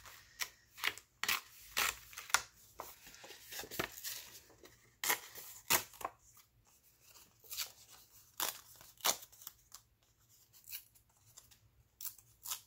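Dyed perforated Rolodex card stock being torn apart along its perforations and handled: an irregular run of short, sharp paper rips and crackles.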